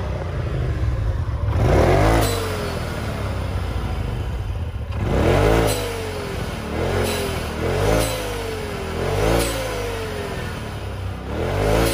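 Polaris RZR's turbocharged twin-cylinder engine revved in neutral in about six throttle blips, the later ones quicker and a second or so apart, each rising and falling back to idle. As the throttle is chopped after each blip, a short hiss follows from the newly fitted blow-off valve venting boost.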